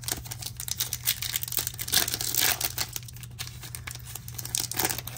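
Wrapper of a 2023 Topps Chrome baseball card pack crinkling and tearing as it is opened by hand: a dense run of crackles, loudest about two seconds in.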